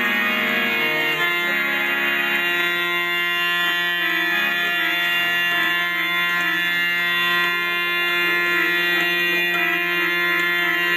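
Harmoniums playing a reedy chord: a few changing notes at first, then a chord held steady from about two seconds in.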